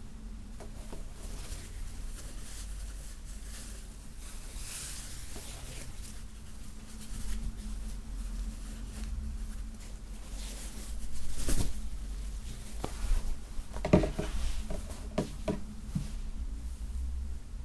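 Rustling of a printed fabric flag as it is handled, folded and laid on a wooden tabletop, with a cluster of soft taps and knocks on the table in the last third. A steady low hum runs underneath.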